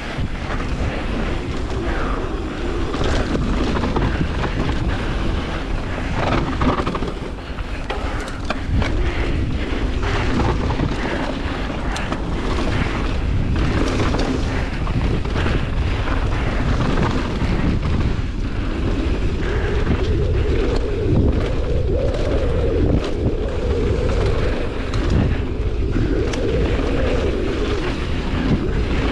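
Mountain bike descending a bike-park trail: wind buffeting the camera microphone over the rumble of tyres on dirt, with frequent rattles and knocks from the bike over bumps. A steadier hum joins about two-thirds of the way through.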